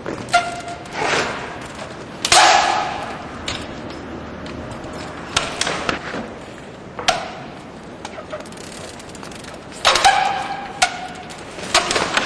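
Trials bike knocking against metal obstacles as the rider hops between them: a series of sharp knocks and clangs, several ringing on with a metallic tone, the loudest about two seconds in and near the end.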